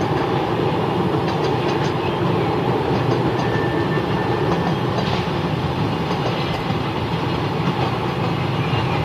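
Double-deck suburban electric train running past on the tracks: a steady rumble with scattered clicks from the wheels over the rail joints.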